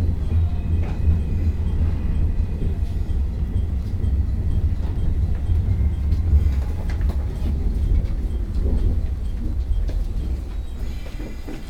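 Electric commuter train heard from inside the carriage, a steady low rumble with occasional wheel clicks as it runs slowly into the station. It grows quieter over the last couple of seconds as the train brakes toward its stop.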